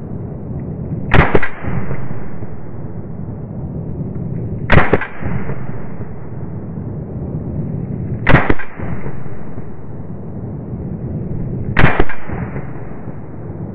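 Taurus PT92 9mm pistol firing four single shots, spaced about three and a half seconds apart, with a steady background noise between them.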